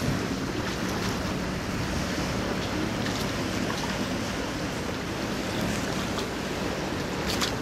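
Wind buffeting the microphone over water washing and splashing around a boat, with a low steady hum underneath. Brief sharp splashes or slaps right at the start and near the end.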